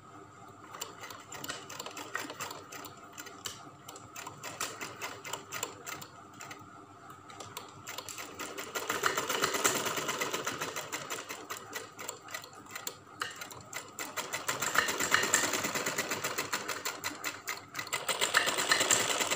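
Sewing machine stitching piping onto a fabric hem, its needle mechanism clicking in a steady rhythm. It starts slowly about a second in, runs faster and louder from about eight seconds, stops briefly near the end and starts again.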